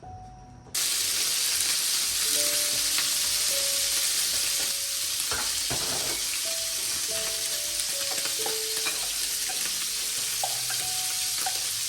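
A loud, steady sizzling hiss with a few faint clicks, starting abruptly under a second in, over soft background music.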